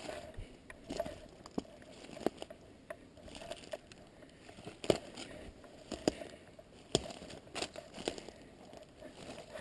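Footsteps crunching through dry leaf litter and bracken, with twigs snapping underfoot in several sharp cracks, the loudest about five seconds in.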